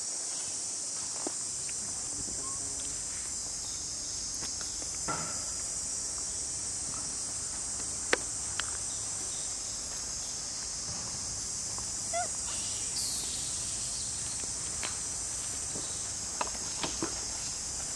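Steady, high-pitched insect chorus droning throughout, with a few scattered faint clicks and a sharper click about eight seconds in.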